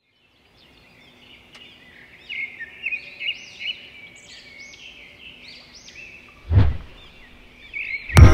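Birds singing, a fast run of chirping and whistled notes that fades in. A deep thump comes about two thirds of the way through, and a loud hit sounds near the end.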